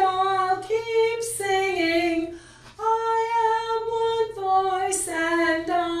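A small group of women singing slowly without accompaniment, holding long notes, with a brief breath pause about two and a half seconds in followed by one long held note.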